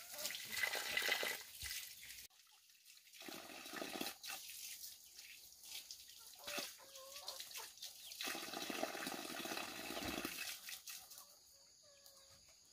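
Water splashing and pouring in irregular bursts, with a few short animal calls about halfway through and near the end.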